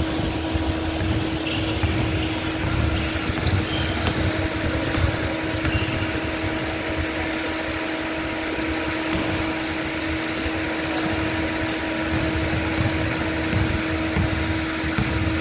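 Basketball game on a hardwood court: a ball bouncing and players' shoes on the floor, with scattered short high squeaks and knocks over a steady hum.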